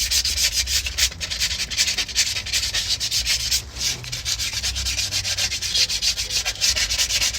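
150-grit sandpaper rubbed over a surface in quick back-and-forth strokes, several a second, to clean it up.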